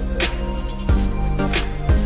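Instrumental background music with a steady drum beat and held bass notes.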